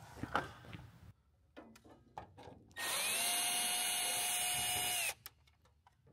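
Cordless drill/driver backing out a screw from an airplane's tail cap: a few light handling clicks, then the motor runs steadily for about two seconds starting about halfway through, its pitch rising as it spins up and falling as it stops.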